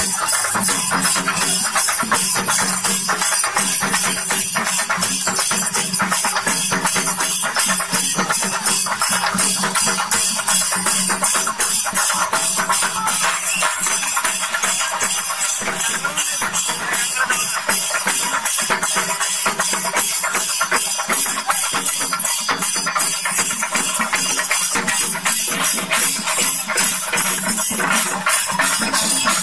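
A troupe of Kerala chenda drums with cymbals playing a loud, fast, unbroken rhythm.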